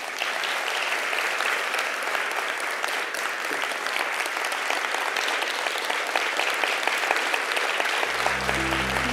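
Audience applauding, a dense, steady clapping from many hands that starts right after the talk ends. Music comes in under the applause near the end.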